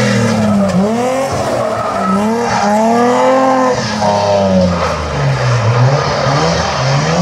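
BMW E30 rally car's engine revving hard through a tight bend, its revs rising and falling several times as it brakes and accelerates, with tyres skidding on the tarmac.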